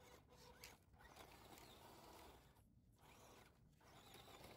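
Faint whirring of a small RC rock crawler's electric motor and gears, coming and going in short bursts with brief pauses as it climbs out of a dirt ditch.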